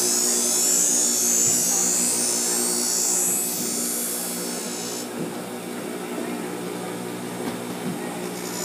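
Machete blade being ground on an electric sharpening grinder: a high, hissing rasp of steel on abrasive over the motor's steady hum. The grinding stops suddenly about five seconds in, leaving the motor running alone.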